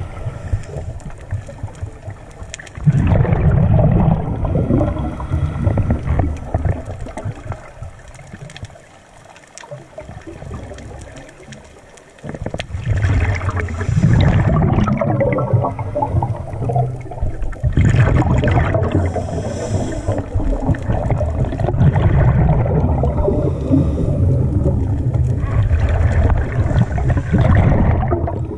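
Scuba regulator exhaust bubbles heard underwater: about four long bubbling rushes of a few seconds each, with quieter pauses between them as the diver breathes in.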